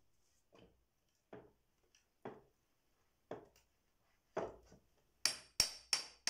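A claw hammer strikes the back of a hatchet head, driving the blade between tight pallet boards to pry them apart: sharp metal-on-metal clanks with a woody knock. There are a few lighter, spaced taps, then a quick run of hard blows near the end.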